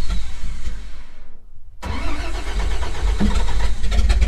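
1949 White Super tow truck's engine being started: it turns over, catches about two seconds in and settles into a steady run.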